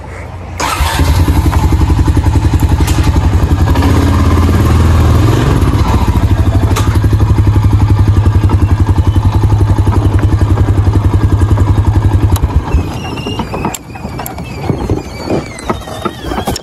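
A red ATV's engine starts up about half a second in and runs steadily with a fast, even pulse. Near the end it turns quieter and uneven as the quad drives off over grass.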